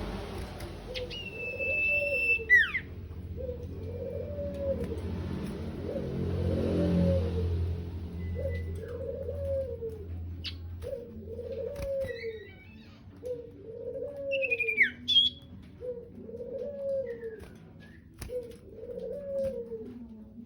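Sirtu bird calling a steady series of short, low, rising-and-falling coos, about one a second. A few sharp, higher whistled chirps break in now and then, and a low rumble runs under the first several seconds.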